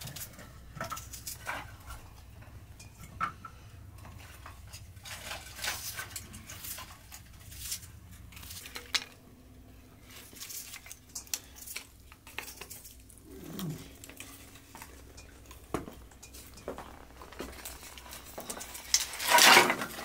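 Scattered light clinks and knocks of a knife and metal bowls during vegetable preparation. Near the end comes a loud clatter as a bundle of split firewood sticks is set down.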